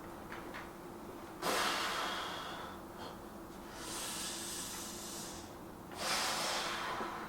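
A man breathing hard with the effort of a bench-press set: a forceful breath out about a second and a half in, a long hissing breath, and another forceful breath out near the end.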